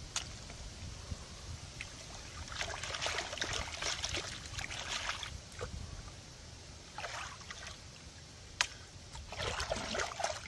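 Water splashing in three spells, the first the longest, with a single sharp click near the end.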